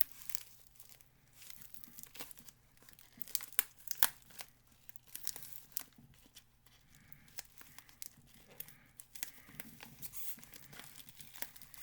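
Parcel packaging being torn open and crinkled by hand: irregular rips, rustles and crackles.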